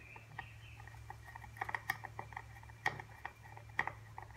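Hand screwdriver driving a wood screw into a pine board: faint, irregular small clicks and creaks as the screw is turned into the wood, with a couple of louder clicks about three and four seconds in.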